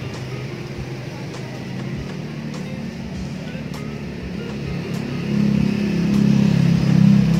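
Steady low hum of a motor vehicle engine, swelling louder over the last two seconds or so. A few faint light clicks sound over it.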